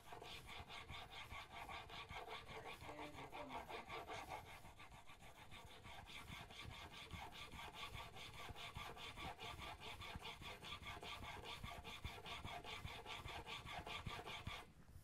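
Chisel held in a sharpening jig being pushed back and forth on a sharpening stone: steel scraping on stone in quick, even strokes that stop just before the end. The bevel is being ground square, with a burr forming across the edge.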